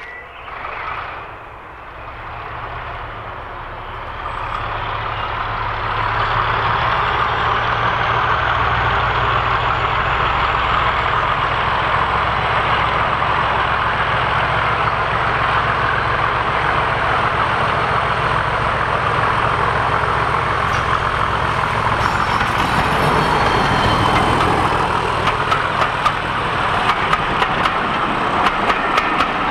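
Diesel locomotive hauling a passenger train, its engine growing louder as it approaches and then holding a steady heavy drone with a thin high whine. After it passes, the coaches' wheels click rhythmically over the rail joints near the end.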